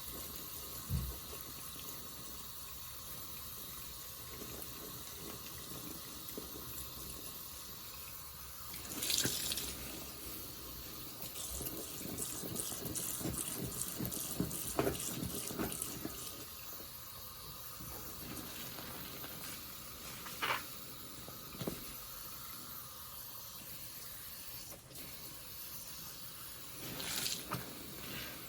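A soapy sponge being squeezed by hand: wet suds squelch, crackle and run off in bursts. There is a squeeze about nine seconds in, a run of quick crackling squelches from about twelve to sixteen seconds, and more squeezes near twenty and twenty-seven seconds.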